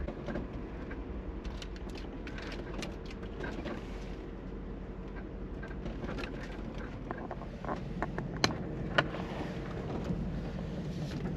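Mercedes G-Class running slowly over a rough dirt-and-stone track, heard from inside the cabin as a steady low hum. Scattered clicks and knocks come from stones under the tyres and the bodywork rattling, with a few sharper knocks about eight and nine seconds in.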